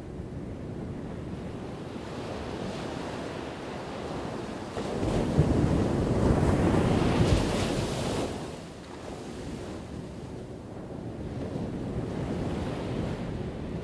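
Ocean surf: a steady wash of waves, with one wave breaking about five seconds in, louder for around three seconds before it recedes.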